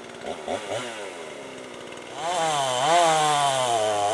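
Chainsaw blipped a few times, then run at high speed from about two seconds in, its pitch dipping and rising about once a second as it cuts into a fallen tree trunk.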